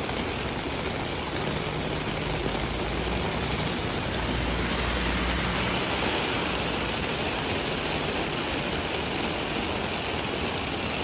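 Heavy rain pouring onto a city street and pavement, a steady hiss, with a low rumble of road traffic underneath that swells in the middle.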